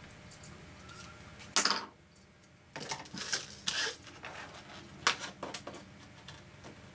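Stiff clear acetate sheet being handled and flexed: a sharp crackling rustle about one and a half seconds in, a cluster of rustles around three to four seconds, then a few short ticks.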